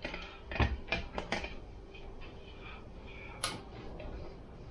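Pressure cooker lid being fitted onto the pot and turned by its handle: a quick run of metal clicks and knocks about a second in, light scraping, then one sharp click near the end.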